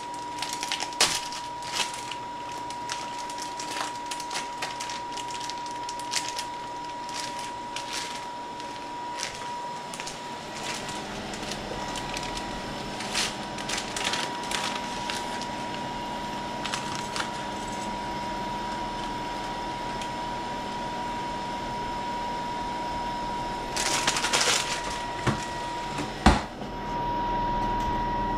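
Kitchen handling sounds at a gas stove: scattered clicks and rustles, with a low steady hum from the pot on the burner. Near the end comes a short burst of rustling as dry spaghetti goes into the pot, followed by a sharp click. A faint steady high tone runs underneath.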